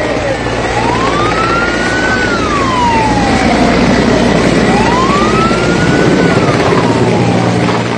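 Emergency vehicle siren wailing, making two slow rise-and-fall sweeps in pitch about four seconds apart, over the steady low noise of a vehicle engine.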